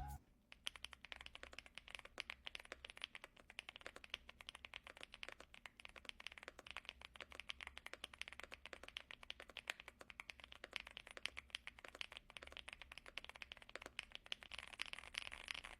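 Typing on a mechanical keyboard fitted with pre-lubed Gateron EF Grayish tactile switches: a fast, unbroken run of soft keystrokes with the creamy sound the switches are known for.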